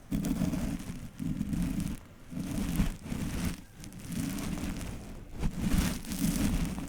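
Repeated brushing or rubbing strokes close to the microphone, each about a second long with short breaks between them, about six in all.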